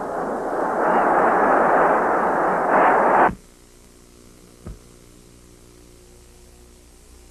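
Football stadium crowd roaring, swelling for about three seconds and then cut off abruptly. After it only a low steady hum remains, with a single click a little later.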